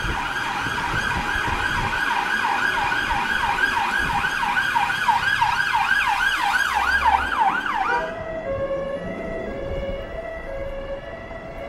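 Emergency vehicle siren in fast yelp mode, loud, sweeping up and down about three times a second and quickening slightly before cutting off abruptly about eight seconds in. Traffic noise and a steady hum remain after it stops.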